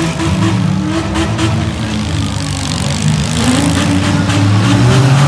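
Engines of several demolition-derby compact cars revving at once, one rising in pitch about three seconds in, with short knocks mixed in.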